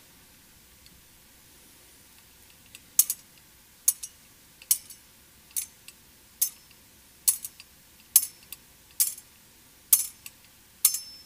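Metal thurible swung on its chains, clinking in an even rhythm of about one clink a second from about three seconds in. It marks the incensing of the cremated remains.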